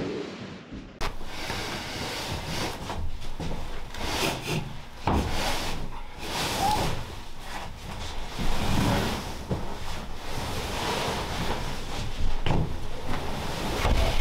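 A quilted mattress being manhandled against a wooden bed frame: fabric rubbing and scraping on wood, with a few dull knocks along the way.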